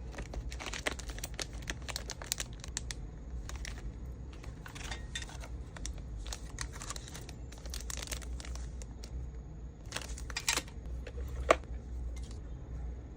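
Packaging crinkling and rustling in irregular short crackles as small items are handled and packed, with one sharp click near the end.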